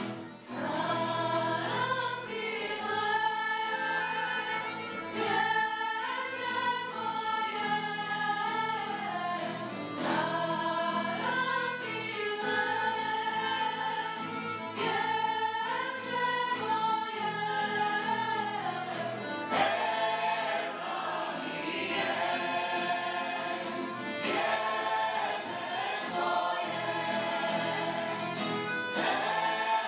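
Choir singing a song together, with held, sung phrases and no speech.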